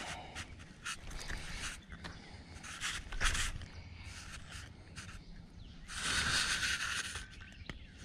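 Close rustling and scuffing handling noises in a small boat, with short clicks and two longer bursts of rustle, one about three seconds in and a longer one about six seconds in.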